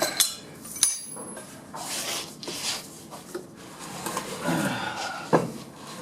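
Metal clanks and scraping as the removed 700R4 transmission is worked off its transmission jack. A sharp knock opens, and about a second in comes a clank that rings briefly. Scraping, rubbing and light clinks of metal follow.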